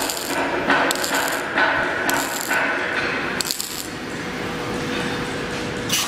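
Reinforcing wire mesh panel welding machine running: short strokes of mechanical clatter and hiss about once a second as it welds and advances the mesh, over a steady hum, with a pause of about two seconds in the second half.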